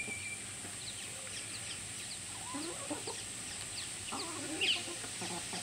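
Domestic hens clucking as they feed, with short high chirps scattered through and a sharper chirp about four and a half seconds in. A steady high hiss runs underneath.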